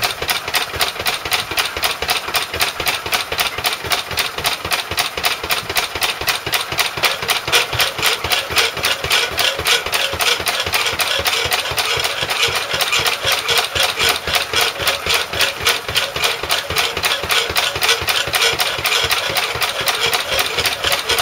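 1929 Lister A stationary engine running steadily on TVO, driving a power hacksaw, its exhaust beats coming as an even, rapid pulse.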